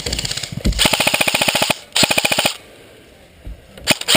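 Airsoft electric rifle firing on full auto: a long rapid burst of about a second and a half, a short burst after a brief gap, a pause, then another burst starting near the end.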